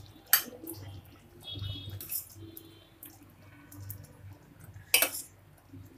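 Steel ladle scooping thick rice kheer from a stainless steel pot into a glass serving bowl: wet dripping and slopping of the pudding, with sharp clinks of the ladle against the pot about a third of a second in and again about five seconds in.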